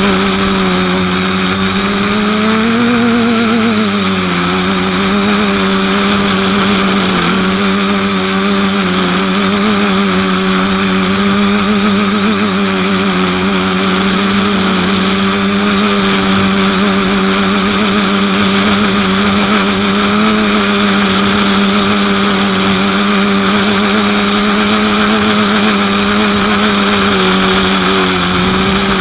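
Electric motor and propeller of a radio-controlled model plane, heard from a camera mounted on the plane: a steady buzzing drone with a high whine. The pitch rises briefly about three seconds in, then dips and settles.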